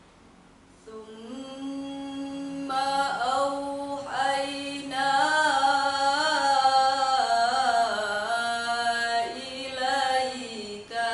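A young female voice reciting the Quran in melodic tilawah style: long held notes with ornamented turns in pitch, starting about a second in after a short pause for breath.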